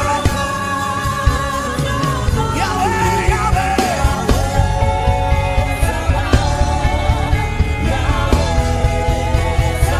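Worship music: a voice singing long, held notes over a band with a steady beat.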